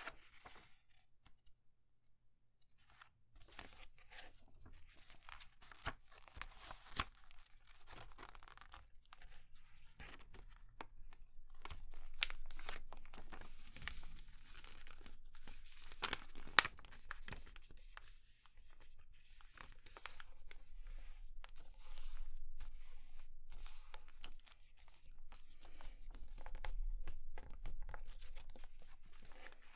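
A sheet of paper being folded and creased by hand on a cutting mat: irregular rustling and crinkling as it is turned and the folds are pressed flat, starting after a brief quiet spell, with one sharp tap about 16 seconds in.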